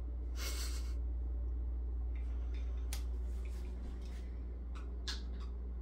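Faint handling noises at a slow cooker: a soft rustle just after the start and sharp clicks about three and five seconds in, over a steady low hum.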